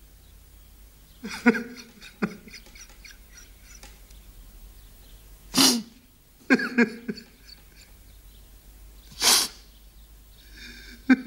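A man sobbing in short, choked bursts, broken by two loud gasping breaths, about halfway through and again near the end.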